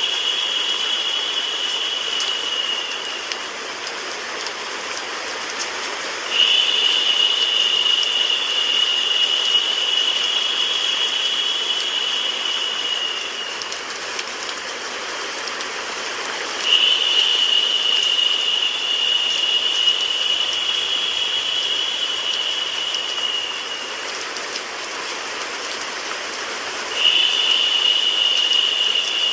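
Steady white noise mixed with a rain sound, an even hiss. A brighter, higher hiss comes in for about seven seconds at a time and drops out for about three, repeating about every ten seconds.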